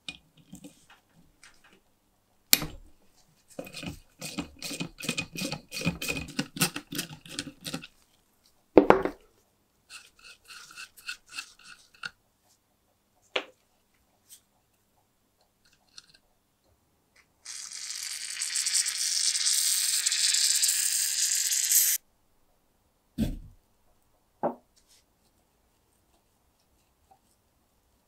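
Small socket ratchet clicking in quick runs as rusted nuts are worked loose, with a few sharp metal knocks. A little past halfway, an aerosol spray can hisses steadily for about four seconds.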